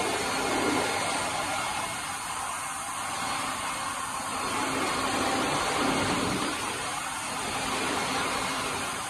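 Twin-spindle vertical machining center running while machining brake caliper brackets: a steady hiss of cutting and coolant spray, with faint steady machine tones underneath.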